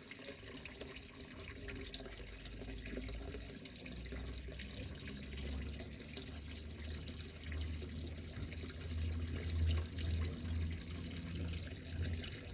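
Water from a pond pump and filter system running and trickling steadily, with a low rumble underneath that swells and eases.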